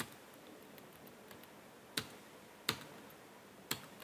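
Computer keyboard keys pressed one at a time, four separate clicks a second or so apart: the Enter key struck to add blank lines between paragraphs.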